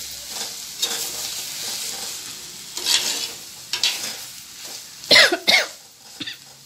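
A metal slotted spatula stirs and scrapes through jackfruit poriyal in a clay pot, over a light sizzle of the food frying. Two short, loud sounds come close together about five seconds in.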